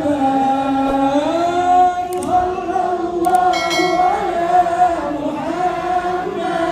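Many voices chanting together in unison, Islamic devotional chanting of the kind a congregation performs at a haul, with long drawn-out notes that slide slowly in pitch.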